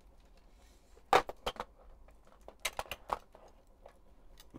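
Scattered light clicks and knocks of weaving tools being handled: a freshly wound yarn bobbin taken off its winder and wooden shuttles moved about in a wicker basket. The sharpest click comes about a second in, with a cluster of smaller ones near the three-second mark.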